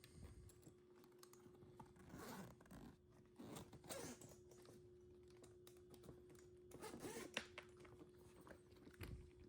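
Backpack zipper being drawn, faint, in three short pulls with light clicks in between, over a faint steady hum.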